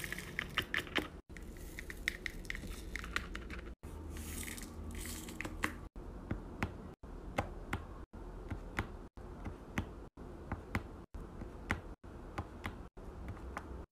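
Plastic resin diamond-painting drills rattling in a plastic tray as they are poured, then a drill pen pressing drills onto the sticky canvas one at a time with light, sharp clicks about once or twice a second.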